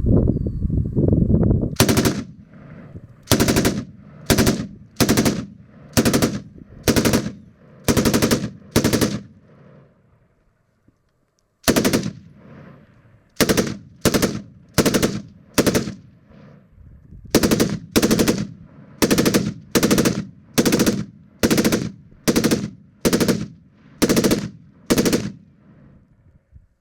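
MGA SAW K light machine gun firing about twenty short bursts in steady succession, each burst well under half a second, with a brief pause just before the middle. A low rumble is heard in the first two seconds, before the firing starts.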